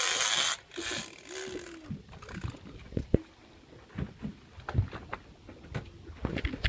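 Rod-and-reel fight with a hooked fish: a short burst of rushing noise at the start, then irregular clicks and knocks of the reel and tackle as the angler pumps the rod and reels.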